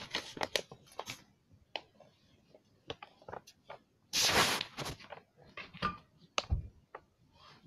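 Handling noise: scattered clicks, taps and rustles from hands moving toys and the camera. A loud rush of rustling lasts just under a second about four seconds in, and a low thump follows a couple of seconds later.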